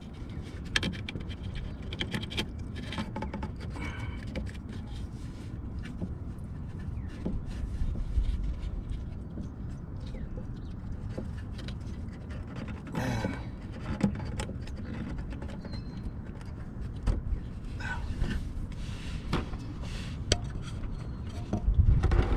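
Hands and tools working around a car's thermostat housing: scattered clinks, taps and scrapes of parts being moved, with a few louder handling noises, over a low steady rumble.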